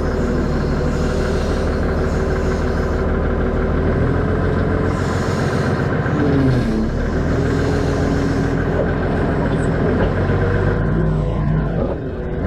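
Forklift engine running steadily, with a brief dip in pitch about six seconds in.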